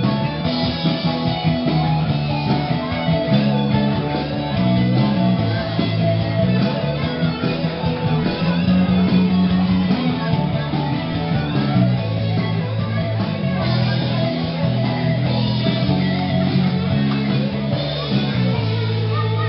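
Rock band playing live without vocals, an electric guitar prominent over bass and drums.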